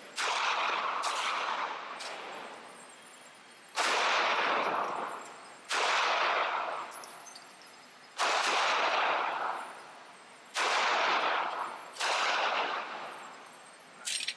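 Handgun shots fired one at a time, about eight of them, spaced one to two and a half seconds apart, each sharp crack trailing off in a long echo.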